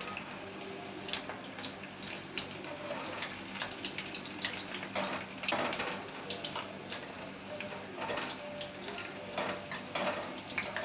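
Batter-coated chicken lollipops deep-frying in hot oil in a steel kadhai: steady sizzling and crackling. A few louder splashes and crackles come about five seconds in and again near the end, as a wire spider strainer turns the pieces.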